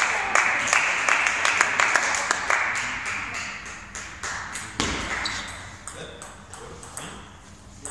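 Spectators applauding after a table tennis point, a burst of rapid clapping that starts suddenly and fades over about three seconds. A few sharp clicks of a celluloid table tennis ball bouncing follow.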